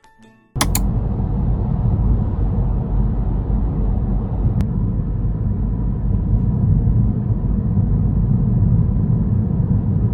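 A steady, loud low rumble that cuts in abruptly about half a second in.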